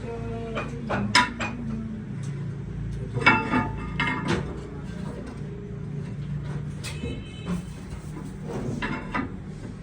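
Steady low machine hum with metal parts clinking and clanking now and then, some strikes ringing briefly.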